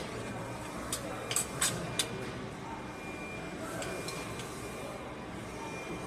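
Steady hum with four sharp metallic clicks between about one and two seconds in, from metal parts being handled during welding work.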